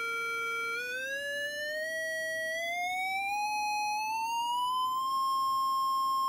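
Bare loudspeaker driven by a function generator, sounding a steady tone at middle A (440 cycles per second). About a second in, the pitch rises gradually as the frequency dial is turned, then levels off near 1,000 cycles per second.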